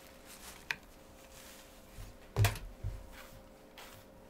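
A wig being handled and pulled on over a wig cap: faint rustling and small clicks, with one dull bump about two and a half seconds in and a softer one just after.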